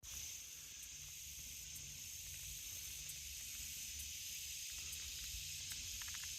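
Steady high-pitched insect drone, an even hiss with no rhythm, over a faint low rumble.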